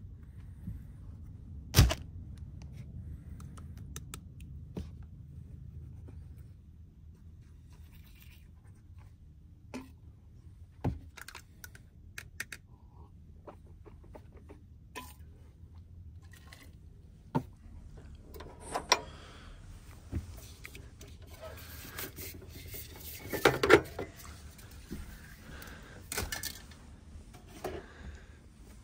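Scattered knocks, clicks and rustling of things being handled in a cramped space, over a low steady hum. The rustling and clatter grow busier in the second half, with the loudest knock near the end.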